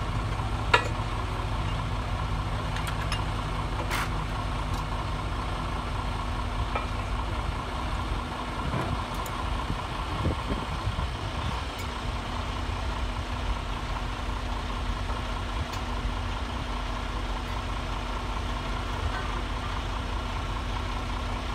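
Heavy diesel engine idling steadily with a low hum, with one sharp knock under a second in and a few fainter clicks after.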